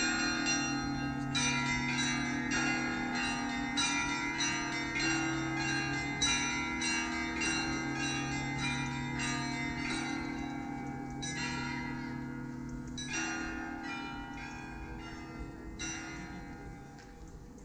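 Russian Orthodox church bells ringing: quick, rhythmic strikes of higher bells over the steady hum of lower, longer-ringing bells. The strikes grow sparser in the second half, and the ringing dies away near the end.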